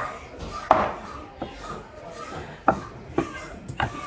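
Knife chopping through a trevally, five sharp strokes at uneven intervals.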